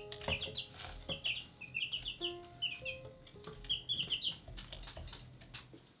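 Young chicks in a brooder peeping, a rapid run of short high peeps in quick clusters, with a few sharp taps among them.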